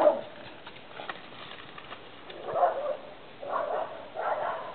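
Rat terrier barking at deer: one bark at the start and three more, about a second apart, in the second half.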